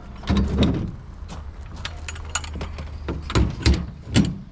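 Knocks and clinks of metal fittings being handled on a homemade gasifier's pipework, with several sharp ones in the last second and a half. Under them runs a low steady hum that fades about halfway through.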